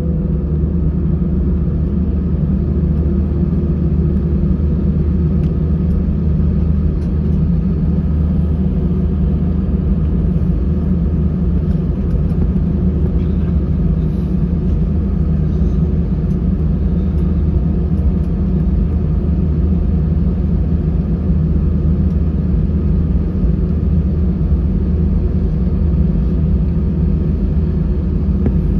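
Airbus A320-214 cabin noise: the CFM56 turbofan engines running at a steady low power, heard from inside the passenger cabin as an even rumble with a steady hum.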